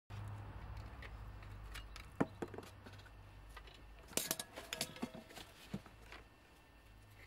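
Metal clinks and taps from drum-brake parts or tools being handled, a handful of scattered clicks then a louder cluster about four seconds in, one briefly ringing, over a low steady hum.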